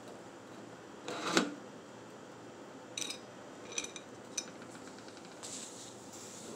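Coins and a metal link chain clinking in a plastic dish as they are handled: a louder clatter about a second in, then three short ringing clinks of metal on metal.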